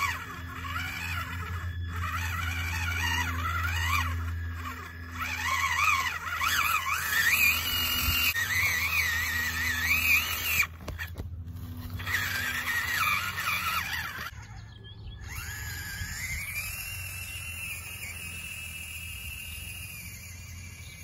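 Small electric RC crawler's motor and drivetrain whining, its pitch wavering up and down as the throttle is eased on and off at crawling speed. It is fed from a USB power bank that struggles against the grass's resistance. After a break about two-thirds of the way through, a smoother whine rises and holds.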